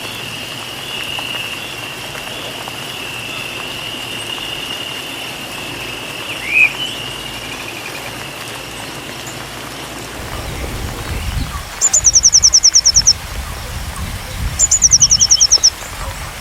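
Songbird singing two loud, rapid, high trills of quick down-sweeping notes, each about a second long, near the end. Before them a steady high insect-like buzz and a single short rising chirp; a low rumbling noise comes in over the last third.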